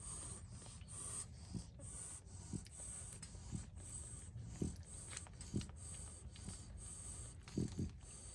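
Four-day-old Frenchton puppies nursing on their mother: faint suckling with brief squeaks and snuffles about once a second.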